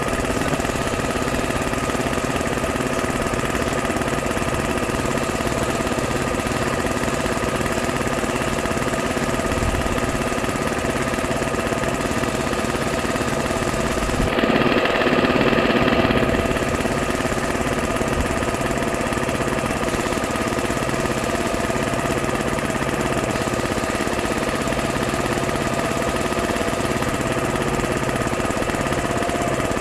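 Small electric piston air compressor running steadily with a rapid chugging, feeding air down a metal pole to agitate a flooded cesspool. About halfway through, a louder rush of noise swells for roughly two seconds.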